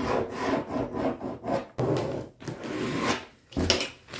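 Pen scratching on brown pattern paper as it is drawn along a wooden curved ruler: a run of uneven rubbing strokes mixed with paper rustling. A dull knock comes near the end.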